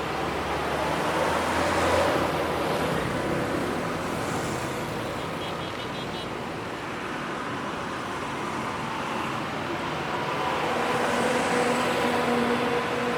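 Highway traffic passing steadily, cars and motorbikes going by; the noise swells as vehicles pass about two seconds in and again near the end, where an engine hum stands out.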